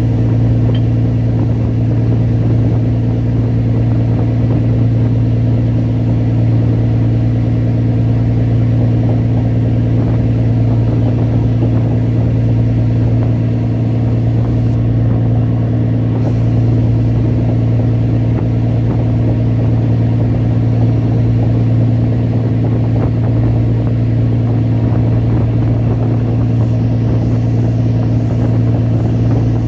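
A boat's engine running steadily at one speed, a constant low drone that does not change, over the wash of water.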